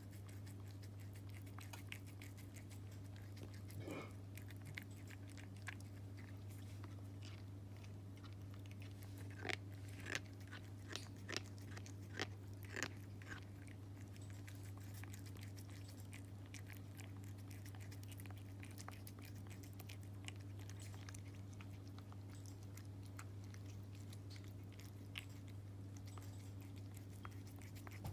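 Cat chewing and grinding its teeth while eating from a hand: small irregular clicks and crunches, coming thickest in a run of sharper bites about 9 to 13 seconds in. A steady low hum runs underneath.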